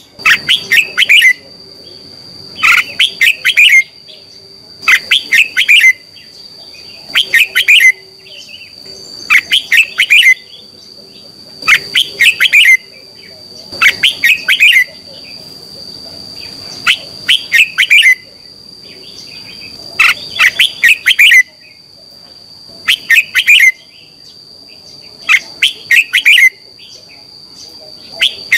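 Red-whiskered bulbul singing: loud, short phrases of quick chirpy notes, one about every two seconds. A steady high-pitched whine runs underneath.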